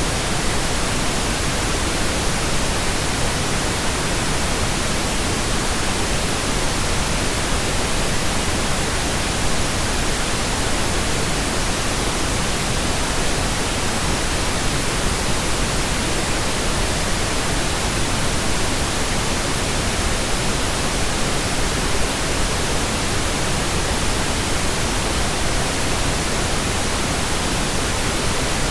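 Steady computer-generated pink noise: an even, unchanging hiss across the whole range.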